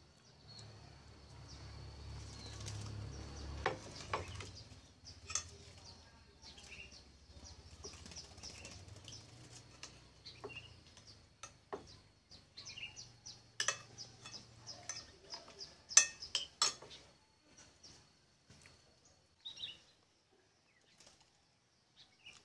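A spoon clinking and scraping against plates as food is served and eaten, with rustling handling noise. A quick run of sharp clinks comes in the middle, the loudest about two-thirds of the way in, over a low rumble and a faint steady high tone.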